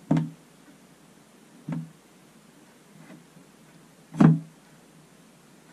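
Three dull knocks, the one about four seconds in the loudest, with a faint tap between the second and third.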